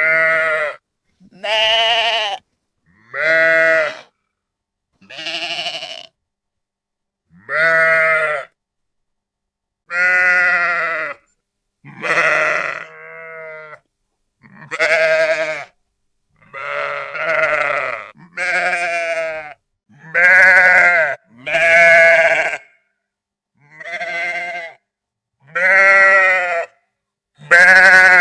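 Sheep bleating: about fifteen separate baas, each about a second long and varying in pitch, with dead silence between them.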